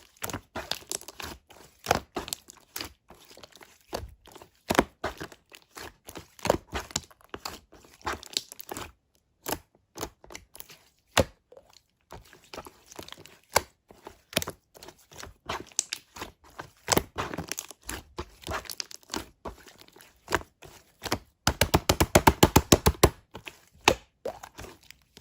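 Slime being squeezed and poked by hand, giving a stream of sticky clicks and pops, with a fast run of loud popping a little before the end.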